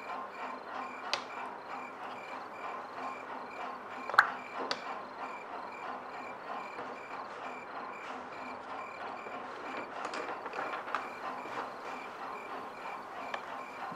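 Insects chirping steadily, with a few sharp taps, the loudest about four seconds in.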